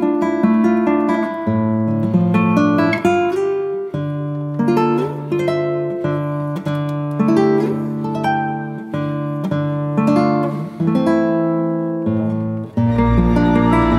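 Background music: a melody of plucked strings, note by note. Near the end a fuller passage with a deep sustained low part comes in.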